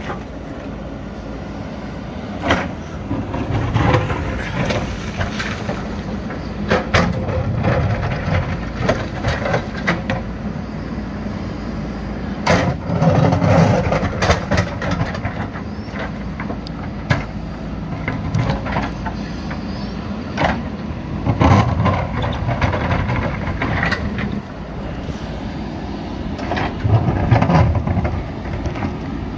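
JCB 3DX backhoe loader's diesel engine working under load, surging every few seconds as the hydraulics dig, with repeated clanks and knocks of the steel bucket against rock.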